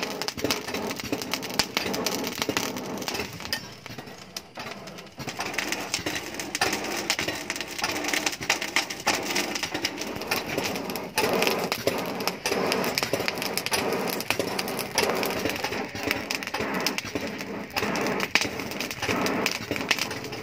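Hand-pumped piston bellows blowing air into a charcoal forge, with a rough steady rhythm of airy pushes, and the burning charcoal crackling throughout.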